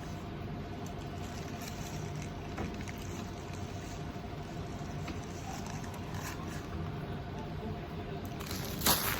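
Steady hum of a machine or appliance with a faint steady tone that cuts off about eight seconds in, with a few light clicks. Just before the end comes one brief, sharp burst of noise, the loudest thing here.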